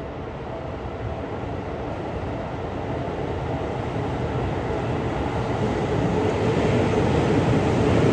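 Seibu 40000 series electric train approaching and running through an underground station without stopping, its rumble growing steadily louder as it nears and enters the platform.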